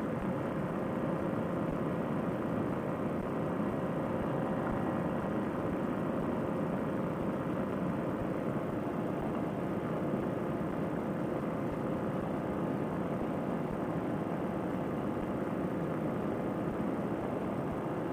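Paramotor trike's Fresh Breeze Monster two-stroke engine and propeller running at a steady cruising throttle in flight, giving a constant noisy drone with one held tone.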